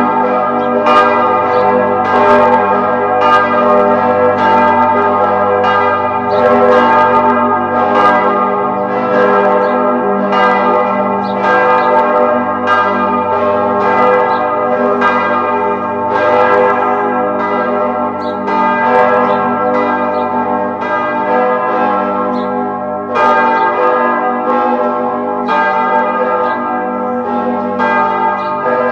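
Church bells ringing in a continuous peal: one stroke after another, about two a second, each ringing on into the next so the bells' tones hang together in a constant loud hum.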